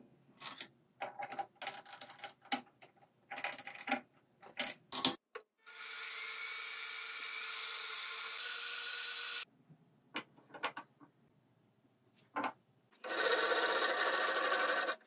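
Metal clicks and knocks as a tool holder is fitted into the spindle of a benchtop milling-drilling machine, then the machine's spindle motor runs steadily for about four seconds at around 730 rpm and stops. A few more clicks follow, and near the end the spindle runs again, louder.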